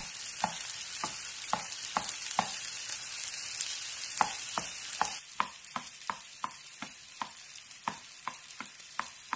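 Wooden spatula tapping and scraping in a nonstick frying pan, breaking up romanesco broccoli florets that sizzle in oil: repeated sharp taps about two a second over a steady soft sizzle, the taps coming a little faster about halfway through.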